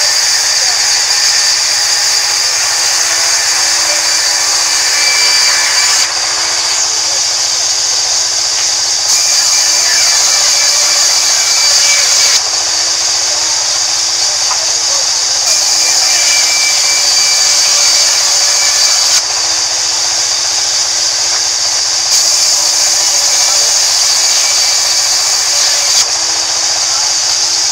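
Sawmill band saw running and ripping rain tree planks, a steady high-pitched noise of the blade cutting through wood. The sound shifts abruptly in level every few seconds.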